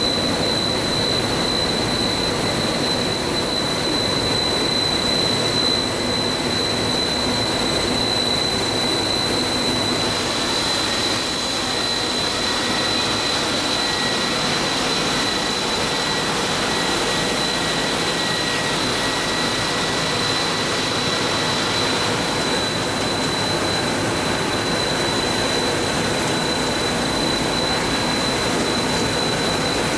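Steady running noise of a coil car mat production line's motors and machinery, with a constant high-pitched whine over it.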